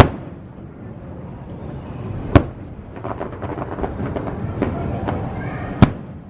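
Fireworks bursting: three sharp bangs, one at the start, one about two and a half seconds in and one near the end, with a spell of rapid crackling between the second and third.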